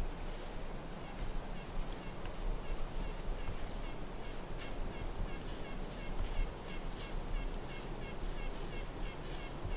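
Birds calling: many short, high calls repeated several times a second in quick succession, over a low rumble.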